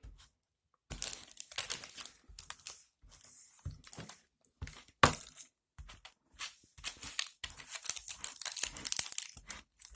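Chunky chocolate and crushed-biscuit mixture being pressed down and scraped flat in a baking pan: irregular crackling and scraping, with a sharper knock about halfway through.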